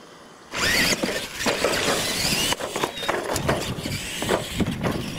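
Radio-controlled Tamiya Clod Buster-style monster trucks launching off the start about half a second in. Their electric motors and gearboxes whine up in pitch over the noise of tyres on dirt, with several sharp knocks along the way.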